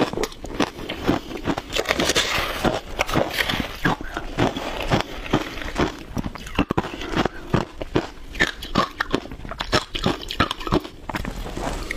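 Shaved ice being bitten and chewed: a rapid, irregular run of crisp crunches. Around the middle, a metal spoon digs and scrapes into the ice in a plastic tub.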